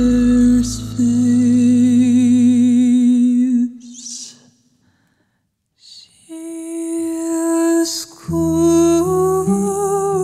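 A woman's solo voice sings a long held note with vibrato that fades away. After a breath and a moment of silence she sings on, and low accompaniment comes in about eight seconds in.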